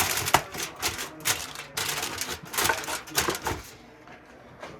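Aluminium foil crinkling and crackling in irregular bursts as it is pressed down over a foil pan of ribs, tailing off in the last second.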